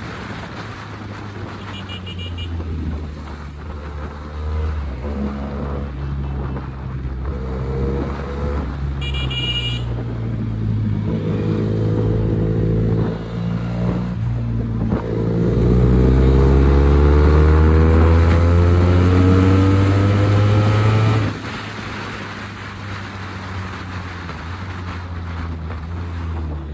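SRK 400 motorcycle's parallel-twin engine and exhaust under way, its pitch climbing as it accelerates and falling back as the throttle closes, several times over. The loudest, longest pull comes about two-thirds through and cuts off sharply. Two brief high beeps sound, about 2 and 9 seconds in.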